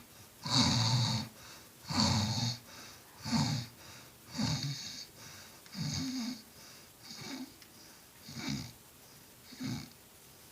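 Snoring: a harsh rasping snore on each breath, about one every second and a quarter, the snores growing weaker toward the end.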